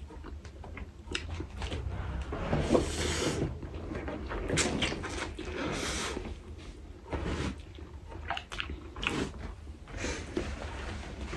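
Eating noises at close range: mouth sounds and airy slurps or breaths, with scattered small clicks and knocks of utensils and dishes, over a low steady hum.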